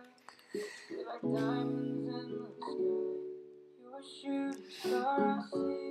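Background music with plucked string notes.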